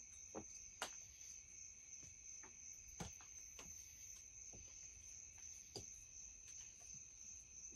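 Faint steady high chirring of crickets, with a dozen or so light scattered clicks and taps of small parts being handled.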